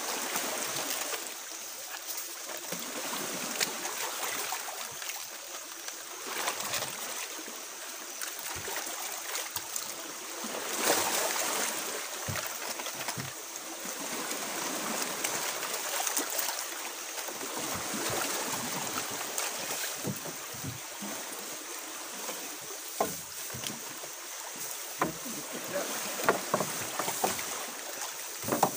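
Water splashing and lapping around a small wooden fishing boat, with scattered knocks and rustling as a gill net is paid out over the side.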